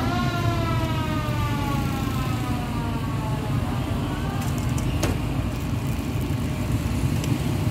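A siren winding down: one long tone with several overtones slides slowly lower over about four seconds and fades, over a steady low rumble of traffic. A single sharp click about five seconds in.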